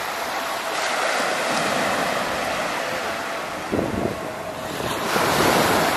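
Small waves washing up over wet sand: a steady hiss of surf that swells about five seconds in, with wind buffeting the microphone.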